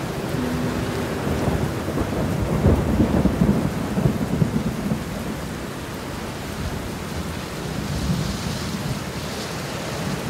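Thunderstorm: steady heavy rain with rolling thunder, the rumble swelling about three to five seconds in and then easing.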